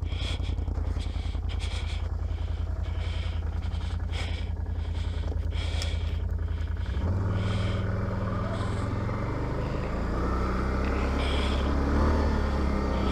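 ATV engine running under way. About seven seconds in, its note steps up and grows louder as the throttle opens and the engine speed rises.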